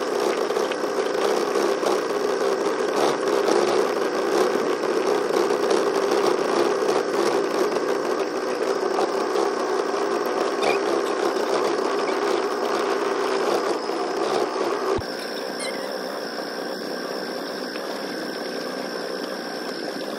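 Small boat motor running with a steady, fly-like buzz. About 15 seconds in the sound cuts abruptly to a quieter steady hum with a thin high whine.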